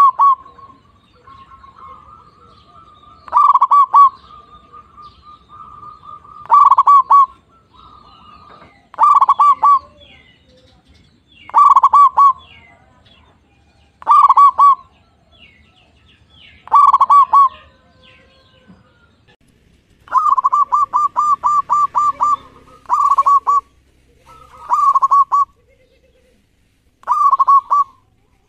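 Zebra dove (perkutut) singing its staccato cooing song: a short phrase of quick rolling coos about every two to three seconds, with one longer run of about eight quick notes around two-thirds of the way through.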